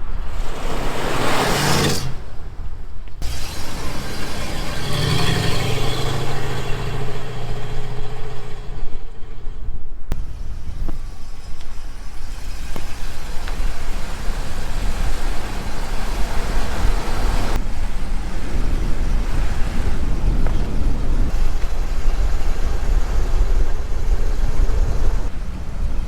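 Buick Riviera's big-block V8 with a new custom exhaust, resonators kept, heard from outside the car in a string of short drive-by clips. A loud pass comes near the start, a low engine note follows a few seconds in, then steadier running with a heavy low rumble.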